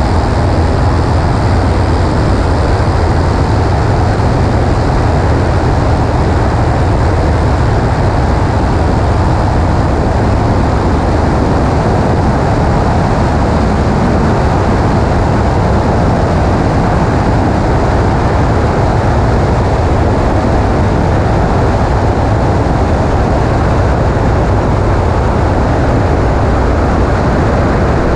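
Small propeller airplane in flight, its engine and propeller running at a steady cruise with a loud, unchanging low drone.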